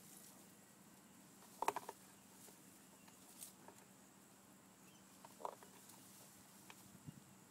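Near silence with a faint steady hiss, broken by a few brief soft clicks and rustles: a quick cluster about one and a half seconds in, the loudest, then single ones a few seconds apart.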